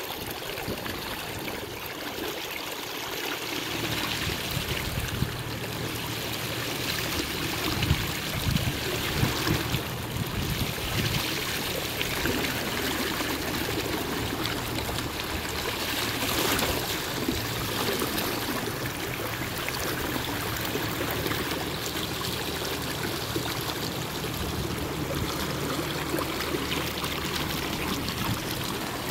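Water trickling and rushing steadily along a kayak's hull as it glides through calm river water.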